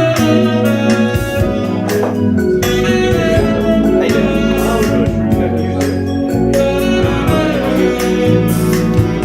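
Recorded song played back over a hi-fi loudspeaker system: a passage of sustained chords over a bass line that changes note every second or so.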